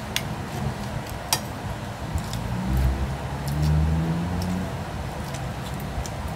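Metal spoon and fork clicking against a ceramic plate during a meal: a handful of sharp, separate clicks over steady background noise. A low hum rises for about two seconds near the middle.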